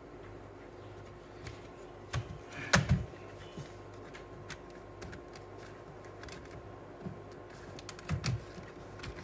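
Plastic laptop casing knocking and clicking as the laptop is handled, closed and turned over onto a rubber bench mat, with the loudest knock about three seconds in and a few more around eight seconds. A steady low hum runs underneath.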